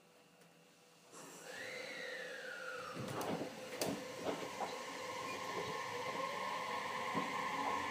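Tobu 60000 series electric train heard from inside the motor car as it pulls away. About a second in comes a hiss with a falling tone, then a few clunks. After that the traction motor's whine builds and starts rising in pitch under acceleration, together with the 'fuu' whooshing that this car makes when powering and that other cars of the series do not make.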